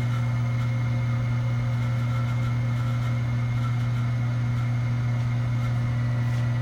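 Hardinge HC chucking lathe running on its three-phase motor with the automatic feed creeping slowly: a steady, even hum with a few faint high tones above it.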